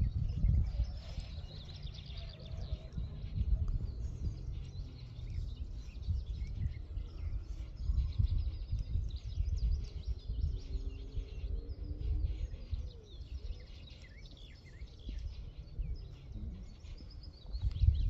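Wind buffeting the microphone in uneven gusts, with small birds chirping and twittering throughout.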